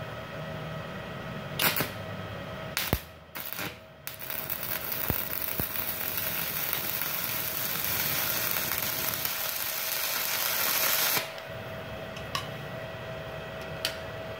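Stick arc welding on a Multipro Solid 120A-ST IGBT inverter welder. After three short crackles as the electrode is struck, the arc holds a steady crackling hiss for about seven seconds, then breaks off suddenly.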